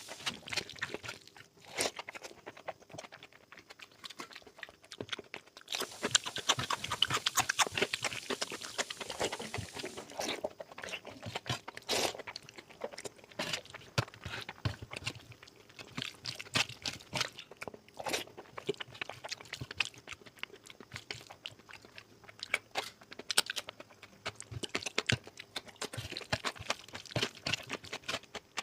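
Close-miked chewing and mouth sounds of a person eating oily mutton fat curry: a steady run of wet clicks and smacks, busiest from about six to ten seconds in.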